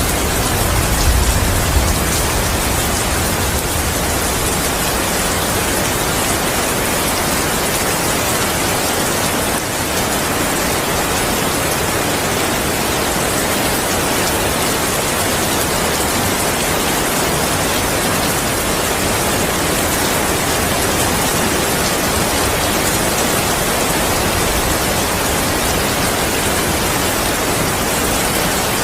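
Steady heavy rain falling, a continuous even hiss. A low thunder rumble fades out in the first second or two.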